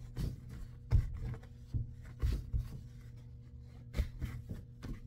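Trousers being folded by hand: fabric rustling and soft handling knocks, with louder bumps about a second in, just past two seconds and near the end, over a steady low hum.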